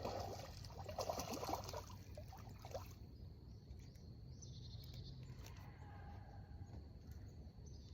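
Water splashing and trickling from a hooked white bass being landed, busiest in the first few seconds, then settling to quiet river ambience with a faint steady high tone.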